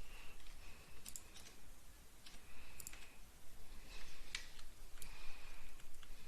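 Sparse clicks of a computer mouse and keyboard, a few scattered over several seconds, with a faint short high-pitched tone recurring every couple of seconds.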